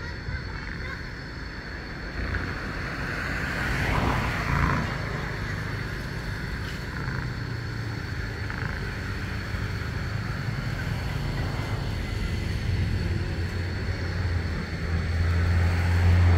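Low engine rumble of passing road vehicles, swelling louder near the end, over a thin steady high-pitched tone.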